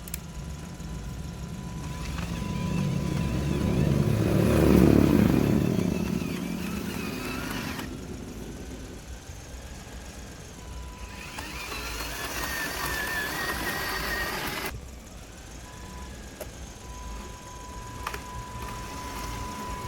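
Handmade radio-controlled model truck running, its motor and gears whining, swelling loudest about five seconds in. The sound breaks off suddenly twice, with a steady high tone underneath throughout.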